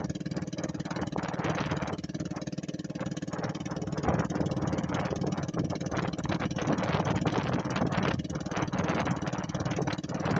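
An engine running steadily at an even pitch, with a constant rattling clatter over it.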